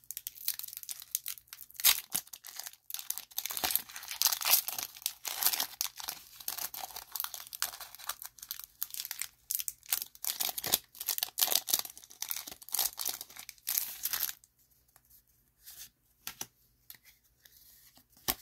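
Foil Pokémon booster pack wrapper being torn open and crinkled in the hands, a dense crackling that goes on for about twelve seconds. It then drops to a few faint rustles as the cards are taken out.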